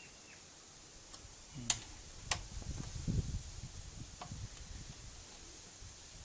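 A few sharp metallic clicks, the loudest just under two seconds in, from an Allen key working the mounting screws of a bicycle disc brake caliper as they are tightened. A low handling rumble runs through the middle.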